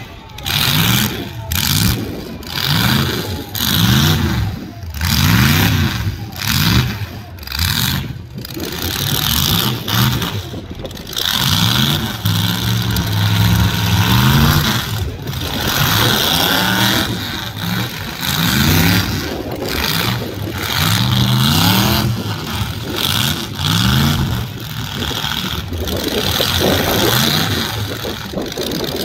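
Mini truck engines revved hard again and again, each rev rising and falling in pitch every second or two, with a steadier stretch in the middle as the locked-together derby trucks push against each other.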